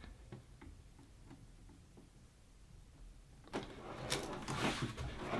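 Handling noise from the plastic-bodied dehumidifier being shifted and turned by hand: a few faint clicks, then rustling and scraping that starts about three and a half seconds in and grows louder.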